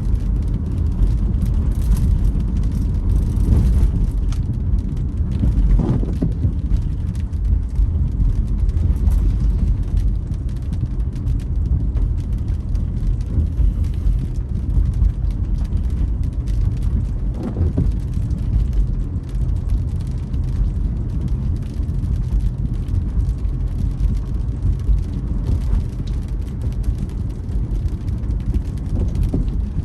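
Inside a car driving in rain: a steady low rumble of tyres and engine, with rain ticking on the car and the windscreen wipers creaking now and then.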